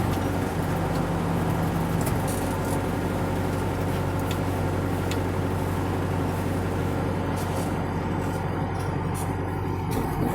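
DT-75 crawler tractor's diesel engine running steadily, with scattered sharp clicks over it.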